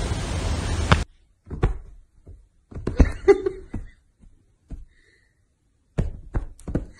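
A steady hiss for about the first second that cuts off abruptly, then scattered soft thumps and taps, with a quicker run of thumps near the end.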